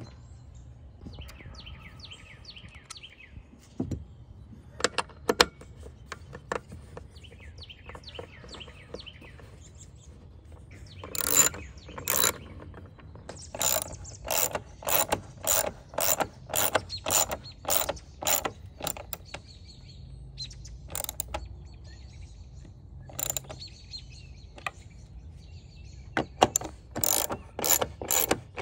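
Ratcheting socket wrench clicking as it turns the bolts of a roof-rail mount, in runs of about two clicks a second midway through and again near the end.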